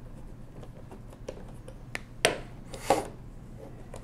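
Screwdriver turning a small screw out of the front of a 1920s Monroe mechanical calculator's case, with faint clicks. About two seconds in come two sharp knocks, each with a brief scrape, as the screwdriver is put down on the wooden table.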